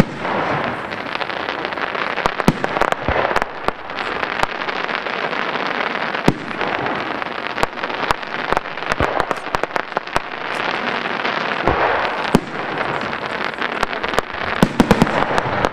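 Aerial fireworks display: shells bursting with many sharp bangs and cracks, coming thickest just before the end.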